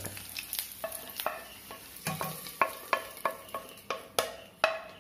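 Wooden spatula scraping and knocking against the metal of a nonstick frying pan and a pressure cooker as ghee-fried raisins are pushed out of the pan: a run of short, ringing knocks, about two or three a second, loudest near the end.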